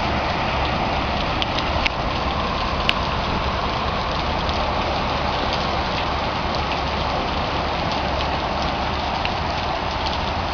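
Heavy rain falling steadily, with scattered sharp ticks of drops striking nearby.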